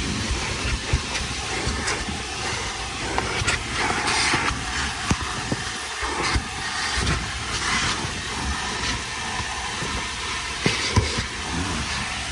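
Car wash vacuum hose running with a steady rushing noise as it cleans out a car's interior, with scattered knocks and bumps from the nozzle.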